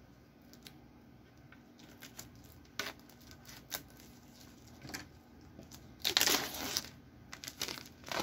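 Packaging being torn and crinkled off a skateboard deck by hand: scattered light rustles and clicks, then a louder tearing and crinkling about six seconds in, with more rustling near the end.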